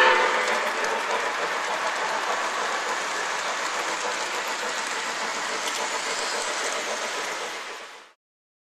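Lionel model freight cars and caboose running past on three-rail track, a steady rolling rattle of wheels on rails that cuts off suddenly near the end.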